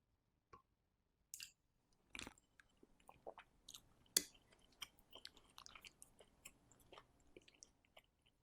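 Someone eating luffa and beef soup, close-miked: a couple of sharp clicks, then a knock about two seconds in, followed by chewing with many small, irregular clicks.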